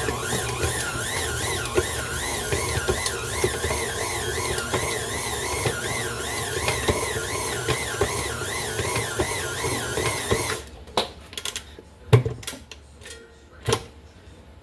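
Electric kitchen mixer motor spinning up and running with a high whine that wavers about twice a second as the beaters turn through the dough, then switched off abruptly about ten seconds in. A few sharp knocks follow, the loudest about two seconds later.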